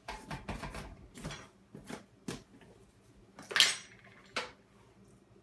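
Kitchen dishes and utensils clattering as an ingredient is added: a string of separate knocks and clinks, the loudest about three and a half seconds in.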